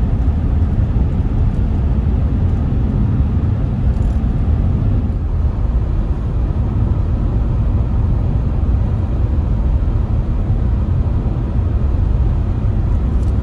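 Steady low rumble of a car driving, the road and engine noise unbroken throughout.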